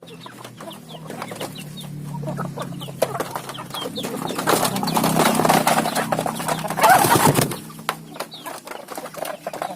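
Young Bangkok game chickens feeding: rapid sharp pecking taps with short high chirps, and a louder noisy stretch in the middle.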